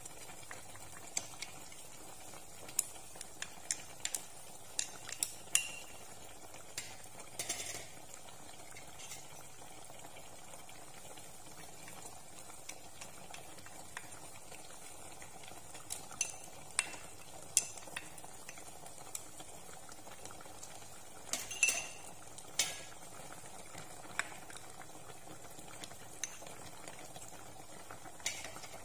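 Sharp clicks and taps of a utensil against a small bowl and the pot rim as minced aromatics are scraped into a pot, scattered in little clusters. Under them, the faint steady bubbling of a braise at a low simmer.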